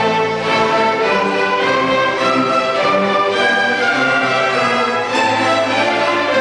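Children's symphony orchestra playing an overture, a full string section of violins and cellos to the fore, in steady, continuous sound.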